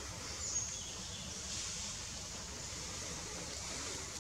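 Forest ambience: a steady high-pitched insect drone that swells a little after the first second or so, over a faint low rumble.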